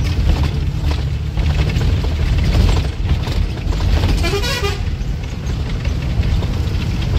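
Bus engine and road rumble heard from inside the bus on a rough mountain road, with a vehicle horn sounding once, briefly, with a warbling tone about four seconds in.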